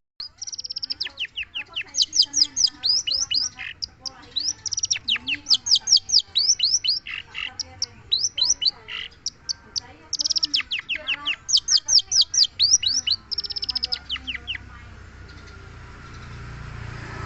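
Long-tailed shrike (cendet) singing in full voice: fast runs of sharp, downward-sweeping high notes in several bursts, stopping about fifteen seconds in.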